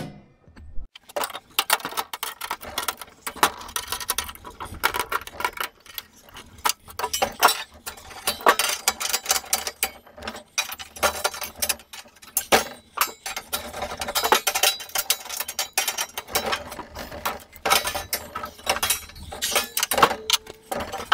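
Laser-cut sheet-steel tool board and steel tools being handled and fitted into place: a busy run of metallic clinks, clanks and knocks, some of them ringing briefly.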